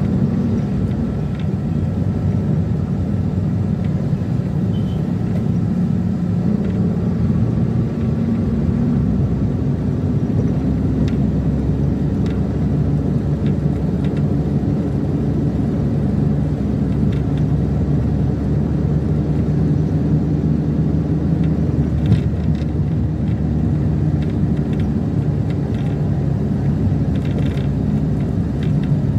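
Steady engine drone and road rumble from inside a moving minivan, with the engine's pitch shifting slowly as the speed changes.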